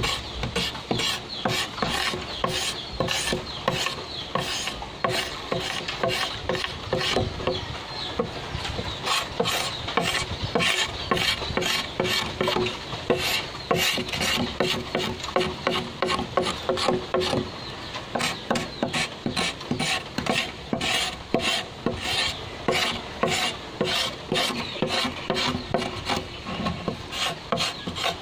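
Knife blade scraping the outer skin off a green bamboo pole in quick, repeated rhythmic strokes.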